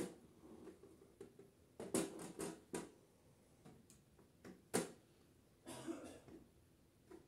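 A few light knocks and taps as a framed wall clock is handled and settled against the wall: a quick run of knocks about two seconds in, one sharp tap a little past the middle, then a brief scuffing rustle.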